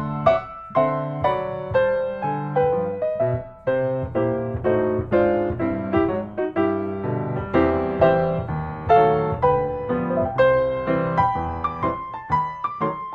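Background piano music: a steady run of notes, several sounding at once.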